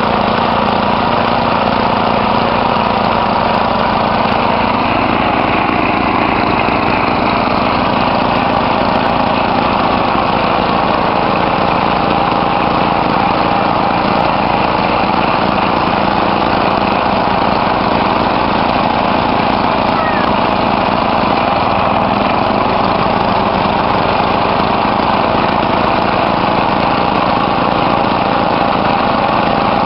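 Small engine of a simple well-drilling rig running steadily at constant speed.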